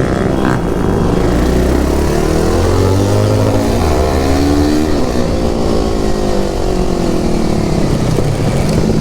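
Motorcycle engine under way, its pitch climbing as it accelerates for the first few seconds, falling as it eases off from about halfway, then starting to climb again near the end.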